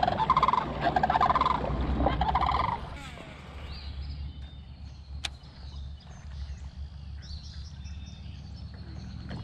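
Birds calling loudly in rapid rattling bursts, three or four of them over the first three seconds, then dropping away to faint high chirps. A single sharp click about five seconds in.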